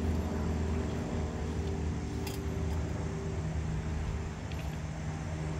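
A steady low hum, with the tail of background music fading out in the first second or so.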